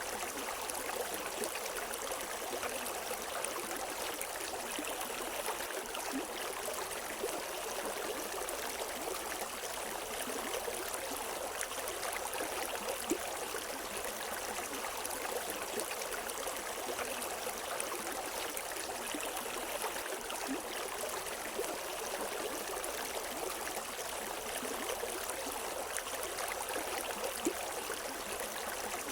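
River water flowing over rocks: a steady rushing with small splashes and gurgles, and no birdsong.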